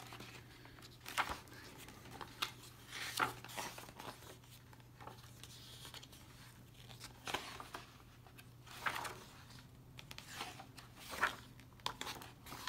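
Paper pages of a thick hardcover comic omnibus being turned one after another, each turn a short swish or flick of paper, several times over, with a faint steady low hum underneath.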